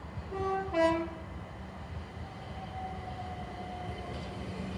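Class 377 Electrostar electric multiple unit sounding its two-tone horn, a short higher note then a lower one, in the first second or so as it approaches the platform. The rumble of the oncoming train then grows slowly louder.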